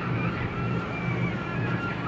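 Belt sanding machine running steadily with a low hum while an unfired ceramic toilet part is pressed against its moving abrasive belt, giving a rough scraping noise with short high squeaks.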